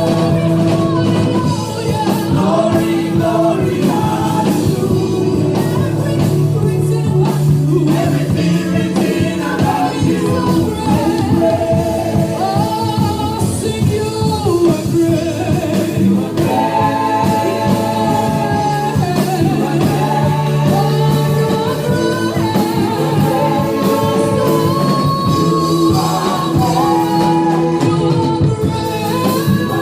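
Gospel praise singing by a group of voices, holding long sung lines over instrumental accompaniment with a steady beat.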